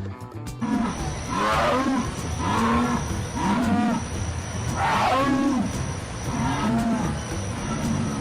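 Jaguar calling: a series of deep, hoarse calls repeated about once a second.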